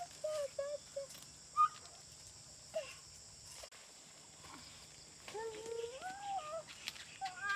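A toddler's short babbling sounds in the first second, then a longer whiny call that rises and falls about five seconds in, over a steady high-pitched insect hum.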